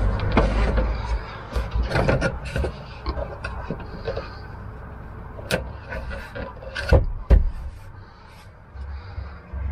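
Laminate floor plank handled and laid against the van's floor, with scattered light knocks and scrapes of the board, then two sharp knocks in quick succession about seven seconds in as the plank is set down into place.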